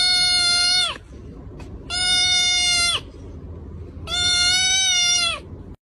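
A kitten mewing: three long cries about two seconds apart, each held on one even pitch and dropping slightly as it ends.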